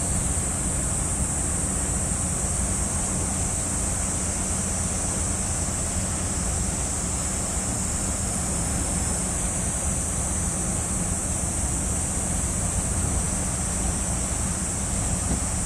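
Steady wind and water noise with a low rumble, under a constant high-pitched hiss.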